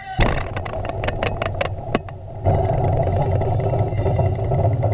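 Underwater explosion of a 40,000-pound charge: a sudden loud onset and a run of sharp cracks over the first two seconds, then a loud, deep, steady rumble from about two and a half seconds in.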